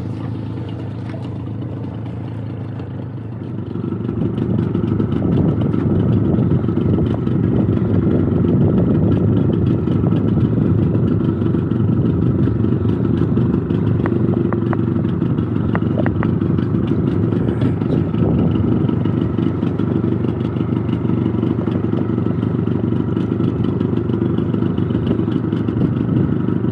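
Outboard motor of a small fishing boat running under way, opening up to a louder, steady run about three and a half seconds in.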